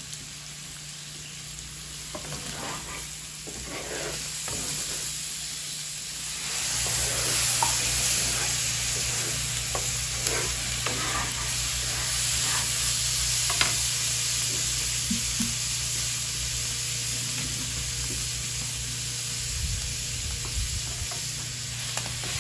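Ground pork frying on the griddle of a wood-fired stove, sizzling steadily while a utensil stirs it with scattered scraping clicks. The sizzle grows louder about seven seconds in.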